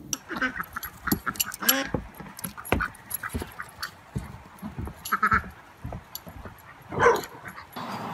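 Dogs yipping and barking in short, sharp calls that come irregularly, the loudest one about seven seconds in.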